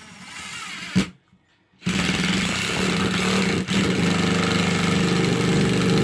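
Power screwdriver driving a screw through plywood subfloor into the support board beneath. It gives a short run that ends in a click, then after a brief pause one long steady run with a momentary dip partway through.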